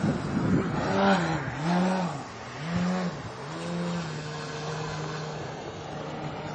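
Engine of a 78-inch Extreme Flight Extra radio-control aerobatic plane in flight. Its pitch swells up and down about four times in the first few seconds, then holds a steady, lower tone.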